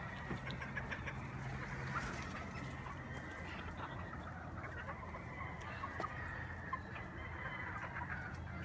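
Free-range chickens clucking softly now and then, short scattered calls over a low steady hum.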